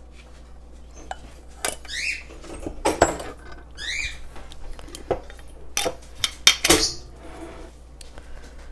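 Kitchenware clinking and knocking: a stainless steel saucepan and mesh strainer tapped and set down against a ceramic bowl, a series of sharp knocks with the loudest about three seconds in and a cluster near the end. Two short rising squeaks come between the knocks.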